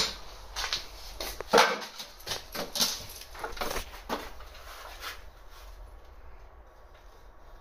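A run of irregular knocks and clatter, sharpest right at the start and about a second and a half in, dying away about five seconds in.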